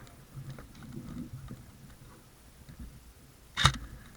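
Low rustle and handling of gear, then one sharp airsoft gun shot near the end.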